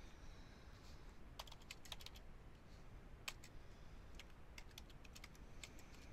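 Faint typing on a computer keyboard: scattered, irregular keystrokes, some in quick runs.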